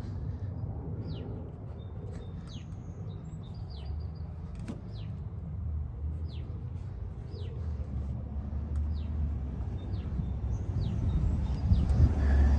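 A bird chirping over and over, short falling notes about once a second. Underneath is a steady low rumble that swells near the end.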